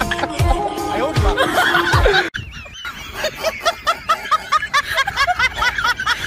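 Music with a repeating bass kick, cut off abruptly about two seconds in. Then rapid high-pitched giggling, short 'hee' notes about four a second, running on for about three seconds.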